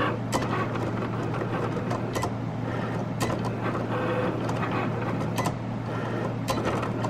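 Cricut cutting machine running: a steady motor hum with irregular sharp clicks.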